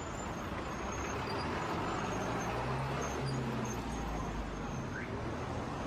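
Steady road and engine noise of a moving car, with a low engine hum that swells briefly in the middle.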